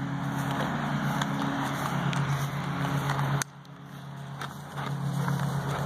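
A steady low motor hum under a hiss. It drops away suddenly about three and a half seconds in and comes back a second or so later.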